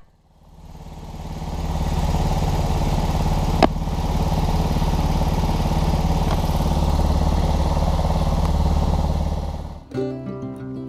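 Small engine running steadily, fading up after a brief gap, with one sharp click a little over a third of the way through. Guitar music starts near the end.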